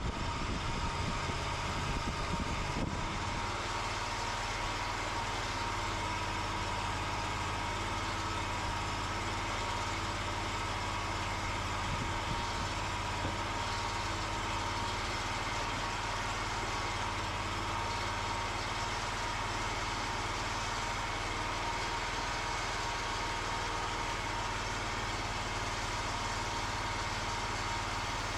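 Engine of a Cooks full-hydraulic sawmill running steadily, powering the hydraulics that load the log, with a constant high tone over its low hum.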